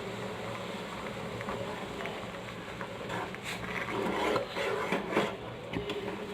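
Kadha boiling in a pan on a gas stove, a steady low hiss. From about three seconds in, a utensil scrapes and knocks against the pan for a couple of seconds.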